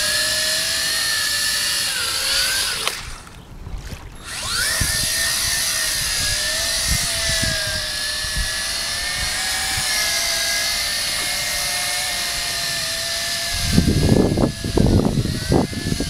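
WLtoys V262 quadcopter's motors and propellers whining steadily in flight over water. The whine falls away about three seconds in as the throttle drops, then rises back about a second later as it climbs again. Louder low rumbling comes in near the end.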